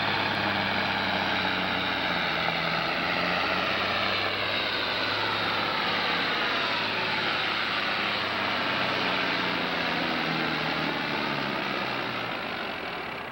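A farm-stock John Deere diesel tractor running flat out while pulling a weight-transfer sled. The engine note is steady and loud, and its pitch sinks for a few seconds midway as the load builds. The sound fades near the end as the pull finishes.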